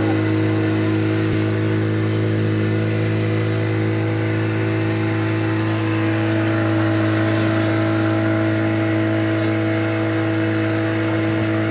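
Motorboat engine running at a steady speed: an even, unchanging hum.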